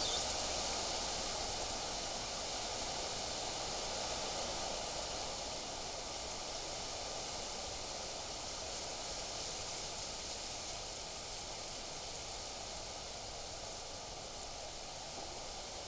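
Steady rustling hiss of wind blowing through trees and foliage, easing slightly toward the end.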